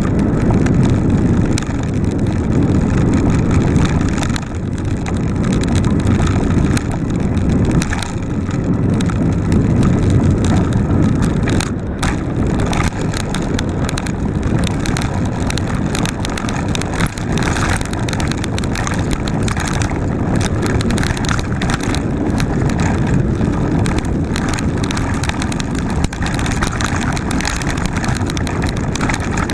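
Mountain bike ridden along a dirt forest trail, heard close up: steady wind buffeting on the microphone and knobby tyres rumbling over the ground, with frequent small rattles and knocks from bumps.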